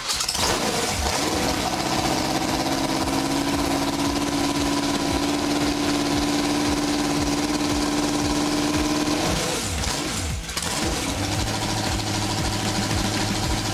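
Freshly rebuilt 350 cubic-inch small-block Chevy V8 firing on its first test start and running steadily through open header pipes with no mufflers. About ten seconds in the engine note falters briefly and changes pitch, then the engine runs on.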